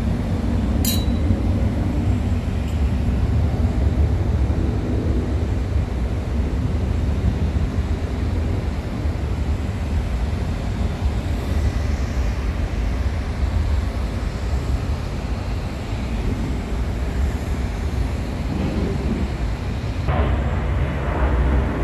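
Steady low rumble of airliner jet engines on a takeoff run, heard through the terminal's glass. A single sharp click comes about a second in.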